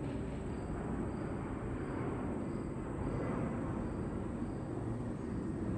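Steady low rumbling outdoor background noise, even throughout, with no distinct sound standing out.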